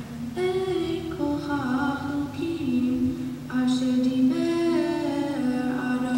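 A female voice chanting Torah verses in cantillation, holding long notes and stepping between a few pitches, over a faint steady low hum.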